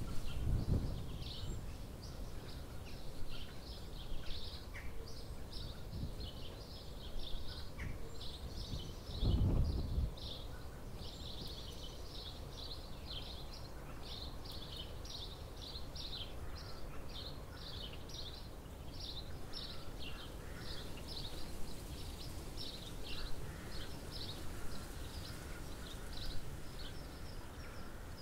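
A songbird singing a long unbroken run of quick, high notes. Wind buffets the microphone in low rumbling gusts near the start and about nine seconds in.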